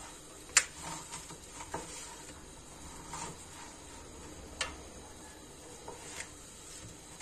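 Kadayıf (shredded dough) strands being pulled apart and fluffed by hand in a metal tray: faint rustling, with a few sharp ticks, the loudest about half a second in and another a little before the fifth second.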